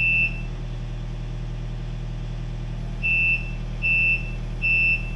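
Takeuchi TB240 compact excavator's diesel engine running steadily while its travel alarm sounds as the machine starts to track: one short high beep at the start, then from about three seconds in, regular beeps a little more than once a second.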